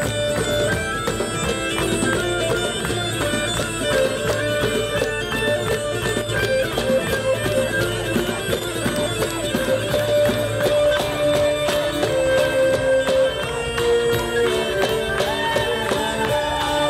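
Live folk-band music led by bagpipes playing a sustained melody over a low drone, with guitar and a steady percussion beat; the low drone drops out about ten seconds in.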